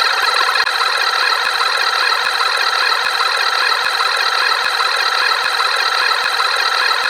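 A loud, unchanging wall of many sound effects layered over one another into a dense, harsh cacophony.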